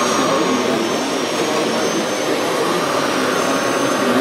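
Steady whine and hiss of the hydraulic pump in a radio-controlled Komatsu PW180 wheeled excavator model, running while the upper body slews round.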